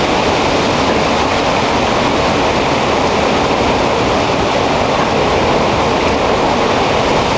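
Hurricane wind blowing hard through the backyard trees: a loud, steady rushing noise with no let-up.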